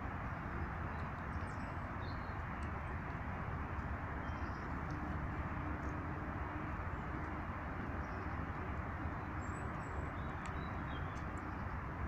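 Steady outdoor rushing background noise, with faint, brief high chirps and ticks of small birds scattered through it.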